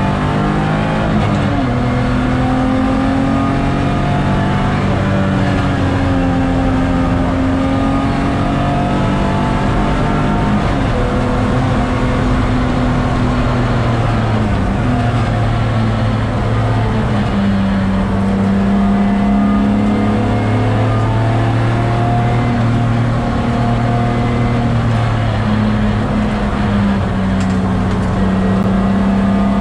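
BMW E46 330's straight-six engine heard from inside the cabin while lapping a race track, its note climbing and falling over and over with the throttle and gear changes, under a steady rush of road and tyre noise.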